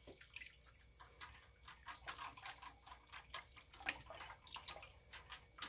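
Faint hand stirring of fragrance oil in a container: small irregular clicks and liquid sounds from a utensil, a few a second.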